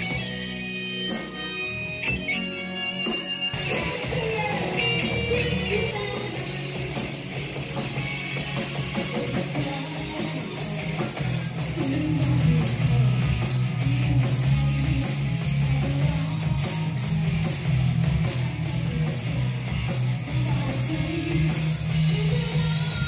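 Rock band playing live: electric guitars, bass guitar and drum kit, with a lead singer. The sound changes abruptly about three and a half seconds in, as the montage cuts to another performance.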